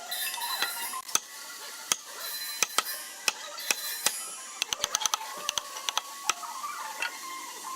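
Irregular sharp taps and clicks of hand tools working on hardwood, some spaced out and some in quick runs.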